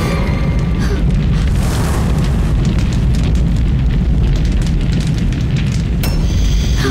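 Horror-drama score and sound effects: a loud, steady low rumble, boom-like, with fire, and a single sharp crack about six seconds in.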